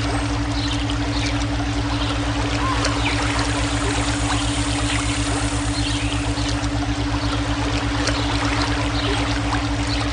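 Flowing water running steadily, laid over a steady low electronic brainwave tone that pulses evenly, with a few faint short chirps above.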